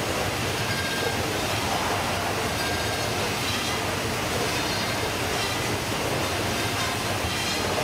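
Steady mechanical running noise of a Baader fish-processing machine and its plastic modular conveyor belt, running continuously.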